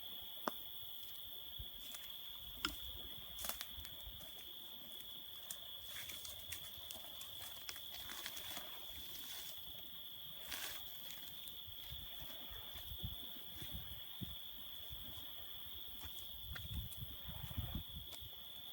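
Crickets chirring in a steady high trill, with scattered sharp clicks and a few low rumbles.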